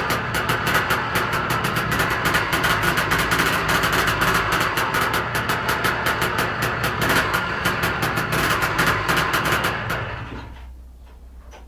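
Yamaha DT 180's two-stroke single-cylinder engine running with a fast ticking rattle through it: the strange noise it is being checked for. The engine is switched off about ten seconds in and runs down.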